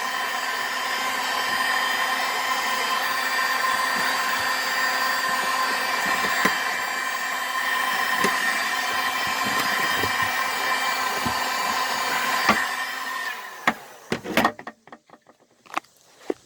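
Electric heat gun blowing steadily with a whining fan, used to soften sticky sound-deadening insulation so it can be scraped off a car floor. It winds down and stops near the end, followed by a few sharp clicks and knocks.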